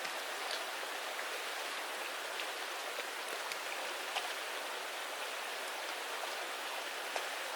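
Mountain creek running over rocks: a steady rush of water with a few faint splashes.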